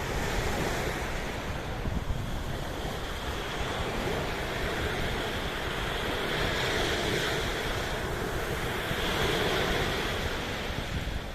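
Sea waves washing in as a steady rush that swells and eases slowly, with wind rumbling on the microphone.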